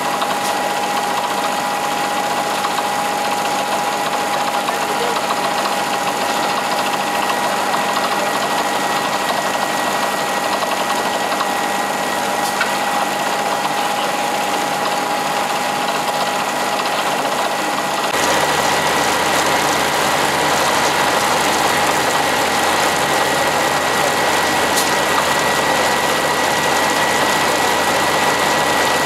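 Truck-mounted water-well drilling rig running steadily, its engine droning under a constant high whine while the newly drilled borehole discharges foamy water. About two-thirds of the way through the sound gets louder and fuller in the bass, then holds steady.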